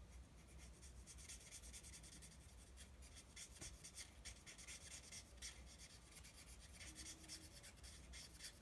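Stampin' Blends alcohol marker tip rubbing over a small paper cutout in short, repeated colouring strokes. The scratching is faint.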